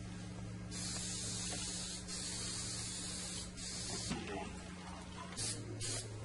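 Spray adhesive hissing from a sprayer in three long bursts of a second or so each, then two short bursts near the end, as glue is sprayed on before the pool table cloth is laid down.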